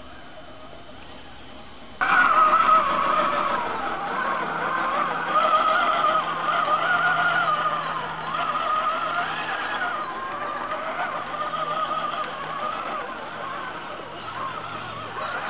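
Whine of the electric motor and gear train of a 1:10 scale RC GAZ-66 crawler truck, its pitch rising and falling with the throttle as it climbs the trail. It starts loudly about two seconds in, after a quieter steady background.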